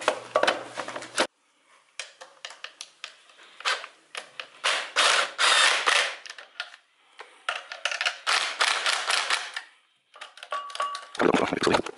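Cordless impact driver hammering in on the bolts of a starter motor in two longer rattling bursts, with metal tool clicks between them.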